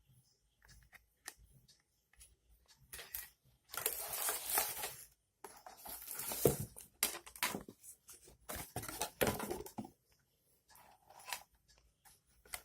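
Packaging being handled and torn open: several bursts of rustling and tearing with scattered clicks and knocks, loudest in the middle few seconds.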